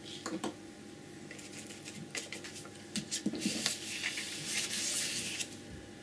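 Scattered light clicks and taps of painting tools, then about two seconds of dry rubbing hiss as a sheet of painting paper is slid and turned on the table.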